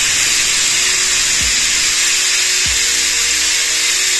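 Prestige pressure cooker whistling: a loud, steady hiss of steam jetting out past the weight valve. This is the first whistle, the sign that the cooker has come up to pressure.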